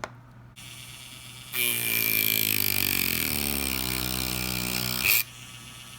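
Small handheld power tool cutting into a Lightning-to-headphone adapter's housing. It starts about a second and a half in, its pitch sinks slowly as it runs, and it stops abruptly about five seconds in.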